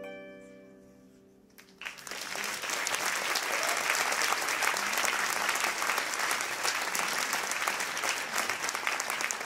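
The last notes of a harp ring out and fade away, then an audience bursts into applause just under two seconds in; the dense clapping is the loudest sound.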